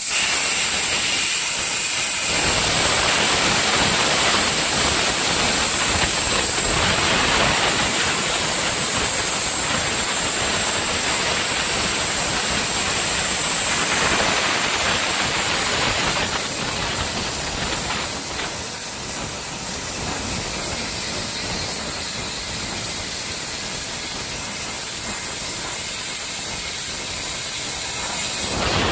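CNC plasma cutting torch cutting carbon steel plate: a loud, steady hiss of the plasma arc and its gas jet, easing slightly after about 18 seconds.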